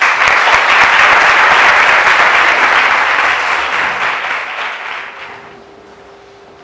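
Audience applauding, starting abruptly, holding steady for about four seconds, then dying away about five seconds in. A faint steady hum remains underneath.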